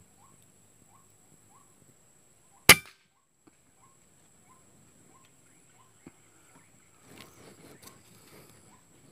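A single air rifle shot about a third of the way in: one sharp crack with a short ring, fired through a scope at a white-breasted waterhen. Faint short rising chirps repeat about twice a second, and there is a soft rustle near the end.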